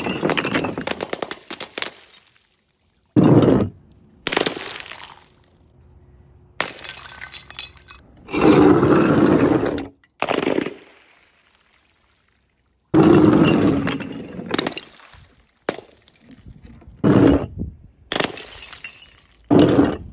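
Glass bottles dropped onto concrete paving tiles and shattering: a series of about ten separate crashes, each followed by shards rattling and clinking.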